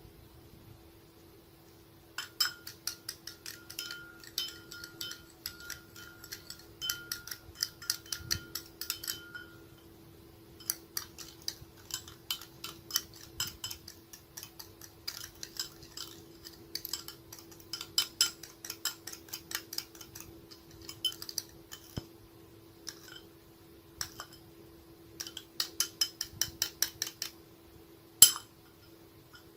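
A spoon clinking rapidly against a dish in runs of quick strokes, like stirring a mixture, with short pauses between runs and one louder clink near the end. A steady low hum sits underneath.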